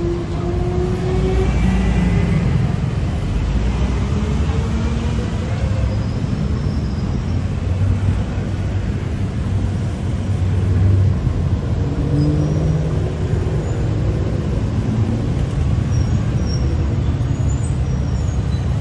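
Busy city road traffic: a steady low rumble of car and bus engines passing.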